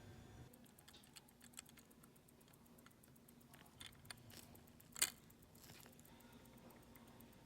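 Faint small clicks and taps of watch-repair work on a Tissot Le Locle watch, with a quick, even ticking behind them. One sharper click comes about five seconds in.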